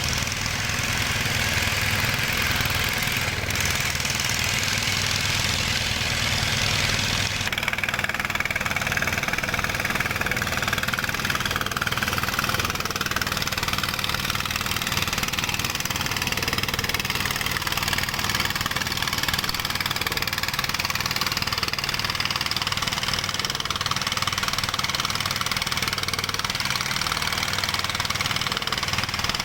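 Dongfeng ('dompeng') diesel engine running steadily. About seven seconds in the sound changes, a high hiss falling away while the engine runs on.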